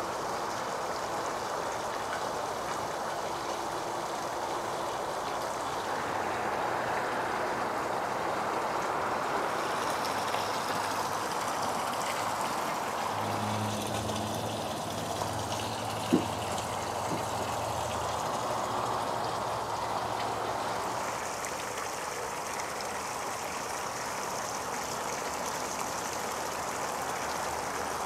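Steady splashing of water falling from a table's waterfall spillway into a small rock-lined pond. A low hum comes in for a few seconds about halfway through, with one short knock.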